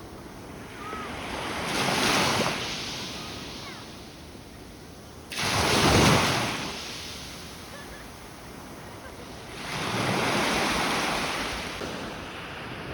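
Sea waves breaking on the shore, three in turn: one about two seconds in, the loudest one breaking suddenly about five seconds in, and a longer wash around ten seconds in.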